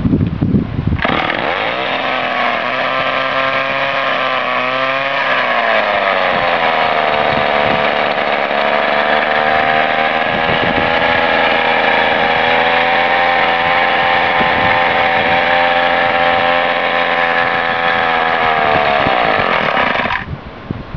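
Orline Mustang chainsaw's Ohlsson & Rice two-stroke engine starting about a second in and running. Its pitch wavers higher for a few seconds, then settles lower and steady, and the engine cuts off near the end.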